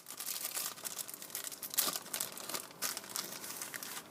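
Packaging crinkling as it is opened by hand, in a run of irregular rustles, the loudest about two seconds in.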